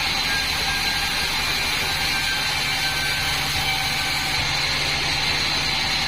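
Band sawmill running steadily: an even mechanical noise with a constant high whine.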